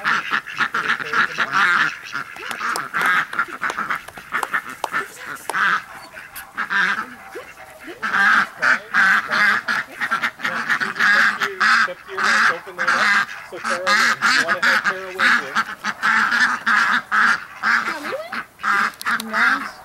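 A flock of domestic ducks quacking, many loud calls overlapping in rapid succession. The calling thins out in the first half and becomes denser and more continuous from about eight seconds in.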